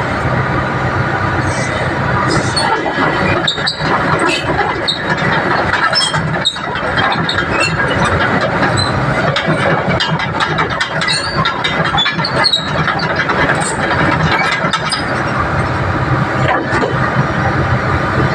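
Hydraulic excavator running, its diesel engine holding a steady note under many short metallic squeals and clicks, typical of the machine working its tracks, pins or boom.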